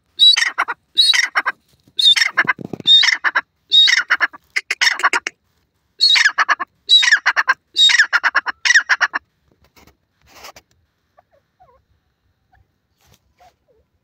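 A grey francolin hen calling: loud, harsh, rapidly pulsed notes in short phrases, repeated about once a second for around nine seconds, then she falls silent.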